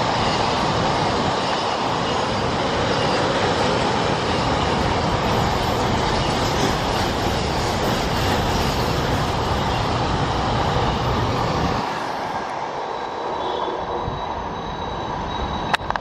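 Loaded container freight wagons rolling past close by: a steady, dense rumble and rattle of steel wheels on the rails. It falls away sharply about twelve seconds in as the last wagons go by.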